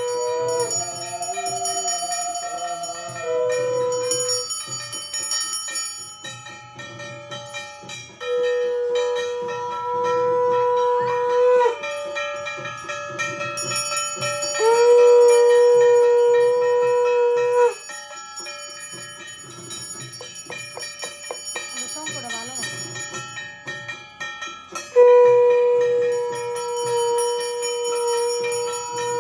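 Hindu puja ritual sounds: a brass kansar plate and a hand bell are struck and rung rapidly and without pause. Over them a conch shell (shankha) is blown in long held blasts of about three seconds each, three times, the loudest sound. A short wavering vocal call is heard about two-thirds of the way through.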